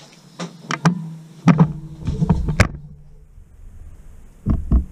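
A series of sharp clicks and knocks from plastic and metal parts of a Honda HRX 537 lawnmower being handled, with a low rumble in between. The clicks come in a cluster over the first three seconds, and two more come near the end.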